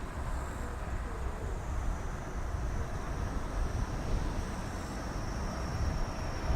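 Boeing 777 jet engines rumbling as the airliner rolls out after landing, steady, with a faint high whine that slowly drops in pitch.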